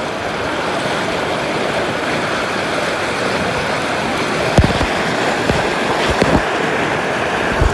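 Steady rush of fast-flowing river water, heard from a raft, with a few dull low bumps in the second half.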